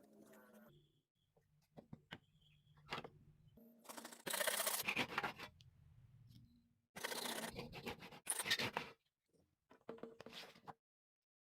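Scratchy abrasive rubbing on wood in a few short bursts, the loudest about four and seven seconds in, with silent gaps between.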